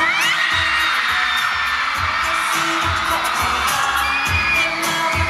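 K-pop dance track played loud through a concert sound system, with a steady low kick-drum beat under synth chords and a rising glide at the start.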